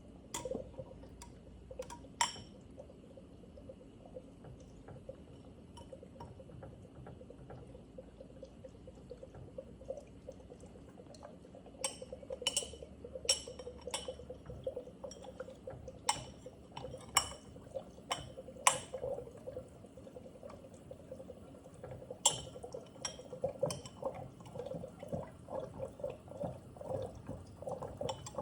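Siphon coffee maker's water bubbling steadily in the upper glass chamber as it heats, with irregular sharp glassy clicks that come more often from about halfway through.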